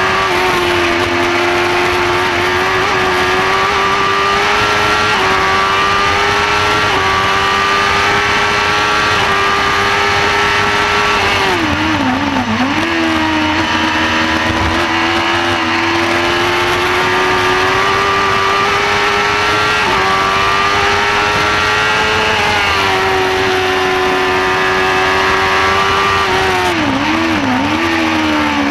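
Shortcar race car's engine running at high revs under full load, heard from the cockpit. Its pitch climbs in steps with the gear changes and dips sharply twice, about twelve seconds in and again near the end, as the car brakes and downshifts for corners.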